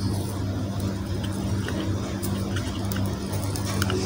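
Steady low hum, with a couple of faint sharp clicks near the end.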